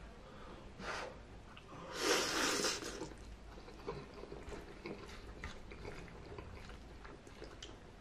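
A man slurping spaghetti noodles: a short slurp about a second in, then a longer, louder one about two seconds in. After that come steady chewing and scattered small wet clicks and smacks of the mouth.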